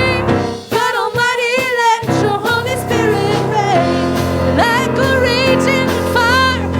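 Gospel-style worship music: a solo voice singing with vibrato over held keyboard chords and a bass line.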